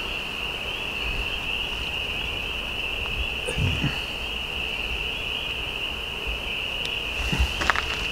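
Chorus of night insects, a steady high-pitched trill, with a few faint soft handling noises from fish being cleaned.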